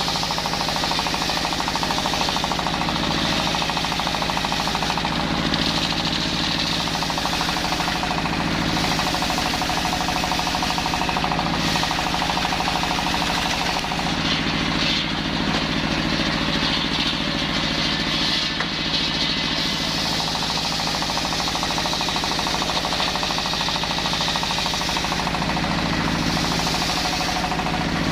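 Brush cutter fitted with a circular saw blade running steadily at high speed while sawing wood, its engine note and blade hiss rising and easing a little as it cuts.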